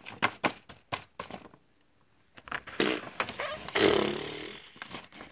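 Handling noise of a toy figure pressed against the camera's microphone: a quick run of clicks and knocks, a short pause, then a louder rough rubbing noise with a brief voice-like sound near the end.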